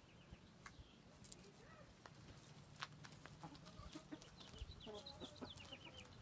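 Chickens clucking faintly, with a cluster of short calls in the second half and a few small clicks scattered throughout.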